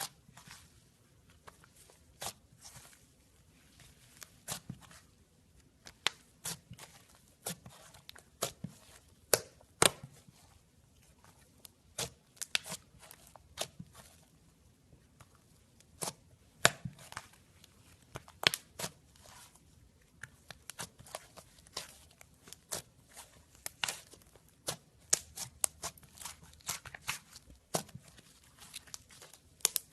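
Slime being squeezed and poked by hand, giving irregular sticky clicks and pops, sometimes several in quick succession.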